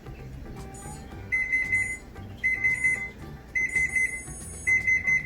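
Oven timer beeping to say the hour of baking is done: four quick bursts of rapid high beeps, about a second apart, starting just over a second in.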